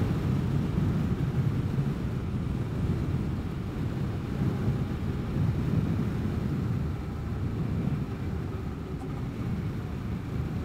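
Vespa GTS 300 scooter's single-cylinder engine running at a steady cruise, mixed with low wind rumble on the microphone.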